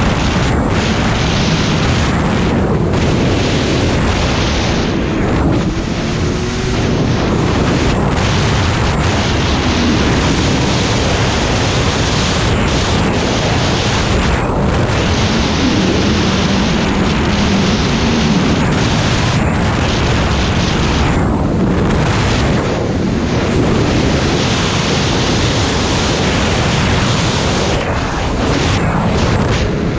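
Snowmobile running at speed, its engine note rising and falling faintly beneath loud, steady wind rush on the microphone.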